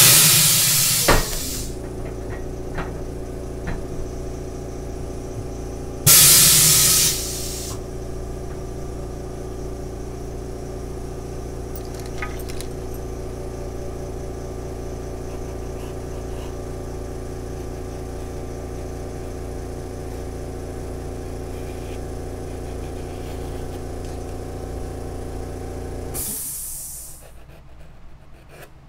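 Shoe sole press working: a loud whoosh of air as it comes on, a second whoosh about six seconds in, and a steady machine hum while it holds. The hum stops near the end with a last short whoosh as the pressure is let off.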